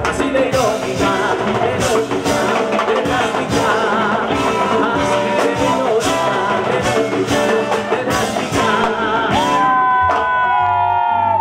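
Live Latin band: congas, bass and electric guitar with a man singing. About nine seconds in, the percussion drops out and an electric guitar plays long, bending lead notes.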